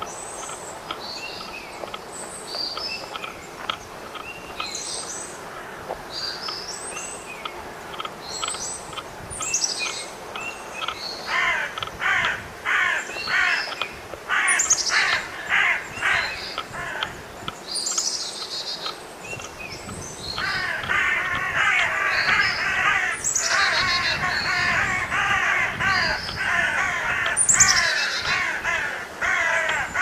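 Woodland birds: small birds chirping and whistling throughout, a crow cawing repeatedly, about twice a second, for several seconds near the middle, and from about two-thirds of the way in a louder, dense chatter of many birds.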